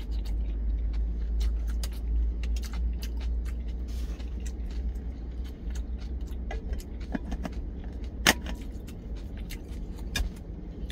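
Steady low rumble of the parked truck's idling engine, with light metallic clinks of a spoon and stainless steel lunch bowl. A sharp clack about eight seconds in is the metal lid going onto the bowl.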